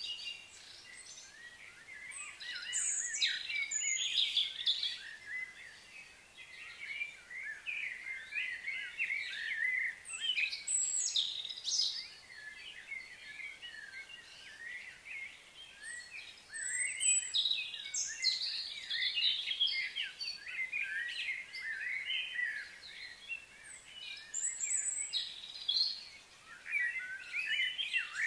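Birds chirping and twittering in busy bursts, with a few short lulls.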